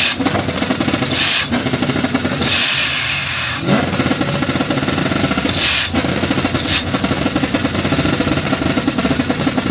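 A car engine running with a fast, choppy, drum-like idle, with several short bursts of hiss: about a second in, around three seconds, and near six seconds.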